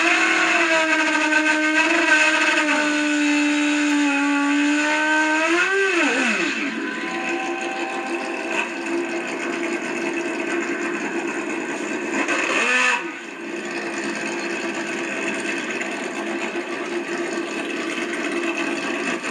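Drag-racing motorcycle engine held at high revs with a steady note, which climbs and drops away about six seconds in; after that it runs rougher and noisier, with another short rev and drop about thirteen seconds in. It is heard as played back through a screen's speaker.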